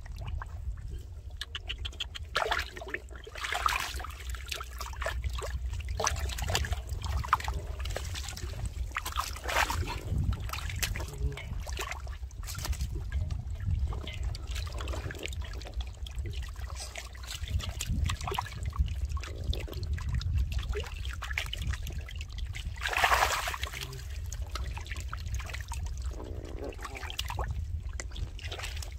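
Water splashing and trickling in irregular bursts, with small dripping clicks, over a steady low rumble; the loudest splash comes about two-thirds of the way through.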